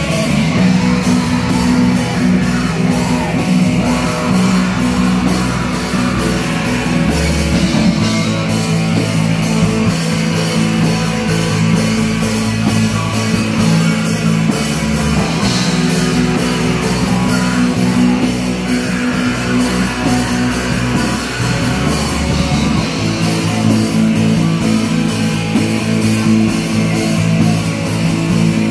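Heavy metal band playing live: distorted electric guitars, bass guitar, drum kit and keyboard together.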